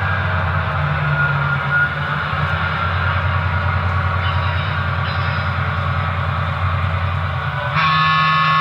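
HO-scale model locomotive's onboard sound system playing a running locomotive: a steady low rumble with a fast even pulse. Near the end a louder sound made of several steady tones cuts in.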